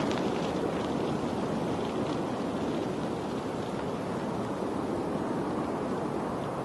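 Steady rushing of water, an even wash without pauses, with a few faint high ticks in the first couple of seconds.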